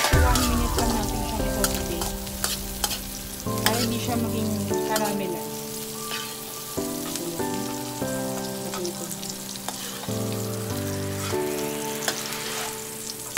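Sliced red onions sizzling in a steel wok while a slotted metal spatula stirs them, scraping and clicking against the pan.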